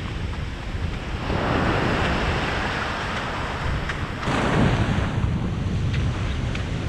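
Surf breaking and washing in over sand, with wind buffeting the microphone.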